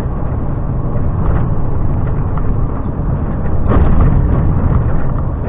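Volvo FM 370 truck's diesel engine and road noise heard from inside the cab while driving, a steady low rumble. A brief louder rush of noise comes about four seconds in.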